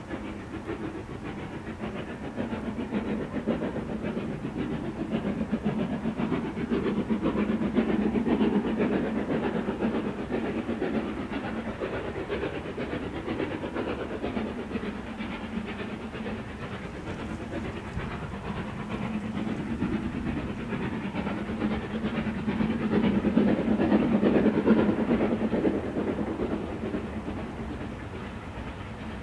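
Steam locomotive hauling a passenger train, its chimney exhaust and the running of the train heard steadily, growing louder about a quarter of the way in and again near the end.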